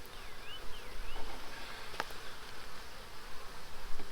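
Swarm of honey bees buzzing steadily around an opened hive that is crowded and ready to swarm, with a single sharp click about halfway through.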